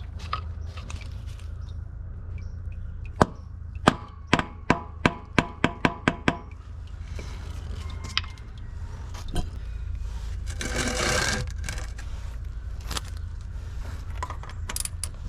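Rubber mallet tapping an oil filter wrench up onto the oil filter housing cap, about nine quick knocks in a row, then a brief scrape.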